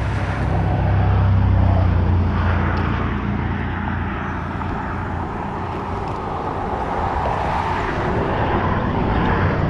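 Passing road traffic: a steady rumble of tyres and engines, swelling about a second or two in.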